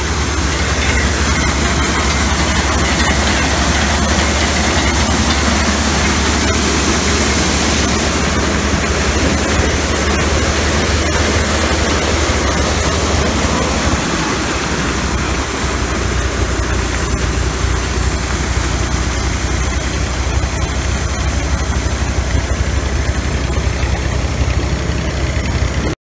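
Tractor engine running steadily under load, driving a grain thresher through its shaft: a deep engine drone with the thresher's steady mechanical noise over it.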